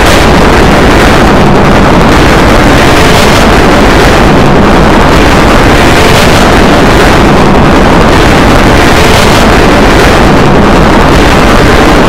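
Extremely loud, heavily distorted, clipped audio: a dense, harsh wall of noise with no clear tones, staying at the same level throughout.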